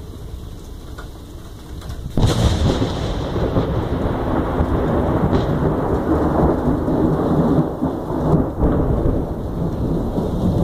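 Thunder from a lightning strike over steady rain. About two seconds in comes a sudden sharp crack, which breaks into a loud, long rumble that rolls on with swells.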